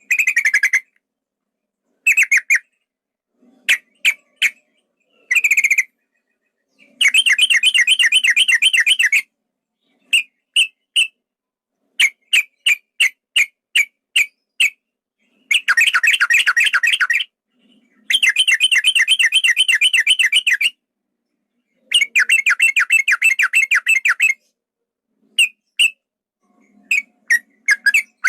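Male yellow-vented bulbul (trucukan) song: bright short notes alternating with several long, fast rolling trills (ropel panjang), each lasting a couple of seconds.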